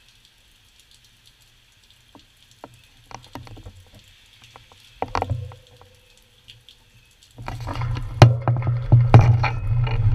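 Faint steady rain hiss with a few scattered clicks and a single knock that rings briefly about five seconds in. From about seven seconds in, a loud low rumble with rapid rattling clicks as the bicycle starts rolling onto wet gravel and the handlebar-mounted camera picks up the jolts.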